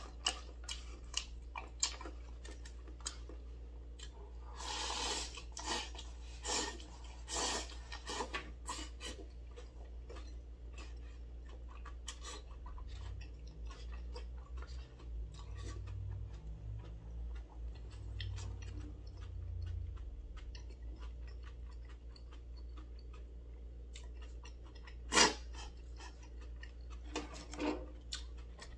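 Eating sounds: chewing of jjolmyeon noodles and tteokbokki rice cakes, with chopsticks clicking against a disposable bowl many times. A run of louder noisy bursts in the first several seconds, and one sharp knock a little before the end.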